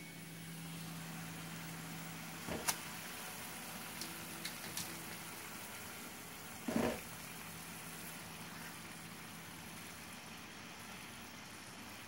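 Water boiling in a cooking pot, a steady hiss with a low hum that fades about nine seconds in, as dried instant noodle blocks are handled and dropped in. There are a few light clicks and knocks, and a short, louder plop about seven seconds in as a noodle block goes into the water.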